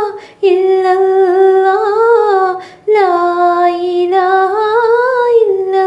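A solo voice singing an Islamic devotional song without accompaniment. It holds three long, slightly wavering notes with short breaths between them.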